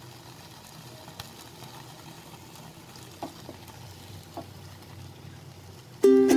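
Whole marinated chicken sizzling over an open gas-burner flame, a steady low hiss with a few light clicks. Ukulele music starts near the end.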